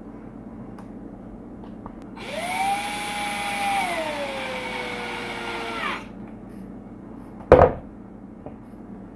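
Cordless drill-driver driving a screw into a plastic RC truck bulkhead: the motor whines up for about four seconds, then its pitch drops as the screw tightens. A single sharp knock follows near the end.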